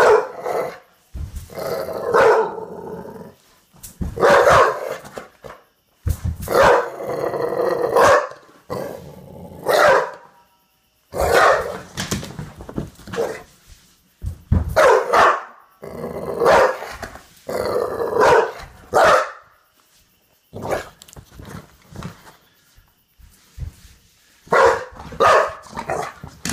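Olde English bulldog barking over and over in loud bursts, excited and worked up in play.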